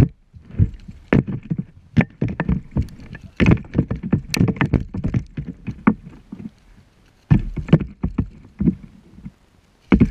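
Irregular knocks and bumps on the GoPro's housing, in quick clusters with a short lull just past the middle.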